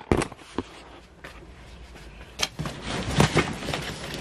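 Handling noise: a few sharp clicks near the start, then rustling and knocking that grows busier and louder in the second half.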